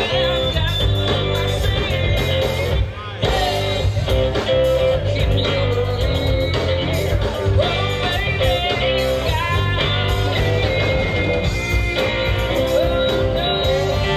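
A live rock band playing electric guitars, bass guitar and drums, with a woman singing. The band drops out for a moment about three seconds in.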